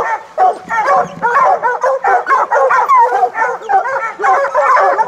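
A pack of bear hounds baying at a bear holed up in a den: rapid, overlapping barks and yips from several dogs at once, with no let-up.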